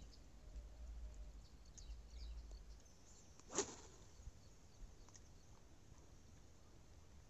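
Low wind rumble on the microphone for the first few seconds, then a single short, sharp swish of a fishing rod being cast about three and a half seconds in. Faint high chirps here and there.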